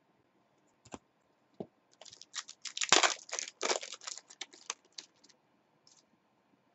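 Two light clicks, then a trading card pack's foil wrapper being torn open and crinkled in a dense crackle lasting about three seconds.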